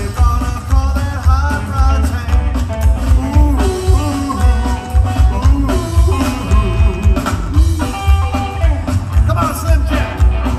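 Rockabilly trio playing live: hollow-body electric guitar, upright bass and drums, with a strong, driving bass line.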